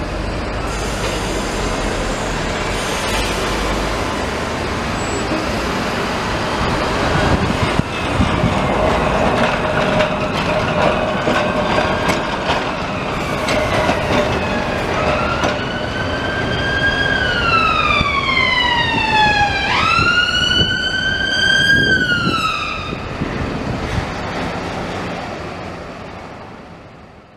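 Road traffic and double-deck trams running past, with a steady hum partway through; from about halfway an emergency vehicle's siren wails, rising and falling in pitch through several sweeps for about eight seconds. The sound fades out near the end.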